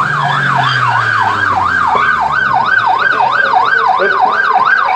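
Police car siren sounding a fast yelp, its pitch sweeping up and down about three times a second without a break. A faint low tone slides down in pitch under it during the first two seconds.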